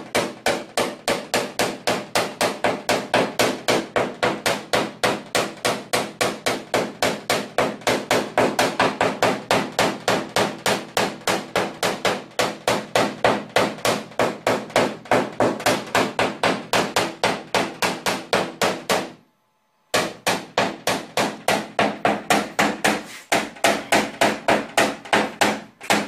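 Small PDR hammer tapping a knockdown punch on the steel hood of an Opel Astra, a steady run of quick light taps about four to five a second, with a short pause about three-quarters through. It is knocking down a high spot of metal raised by the heater.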